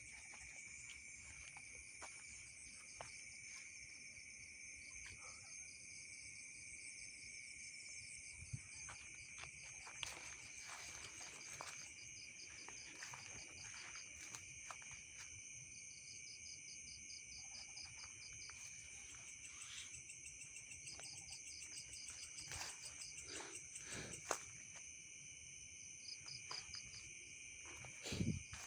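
Night insect chorus of crickets and other insects: a steady high buzzing with rapid pulsed trills that come and go. Scattered faint clicks and knocks, one sharper knock late on.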